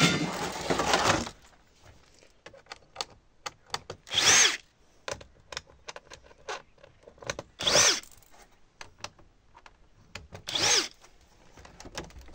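Cordless drill-driver run in three short bursts about three seconds apart, its motor whine rising and falling each time as it drives out screws from an LCD panel's sheet-metal frame. It opens with about a second of loud scraping noise, and small clicks and taps of handling fall between the bursts.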